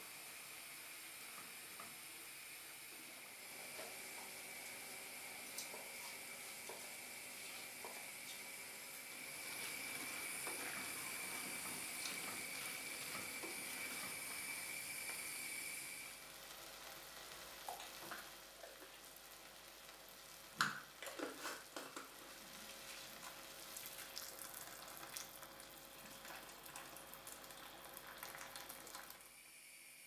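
Diced potatoes and tomatoes sizzling as they sauté in a pot, with the odd scrape of a wooden spoon stirring them. About halfway through the sizzle stops, and a run of light knocks and clicks follows as lentils and spices go into the pot. The sharpest knock comes about two-thirds of the way in.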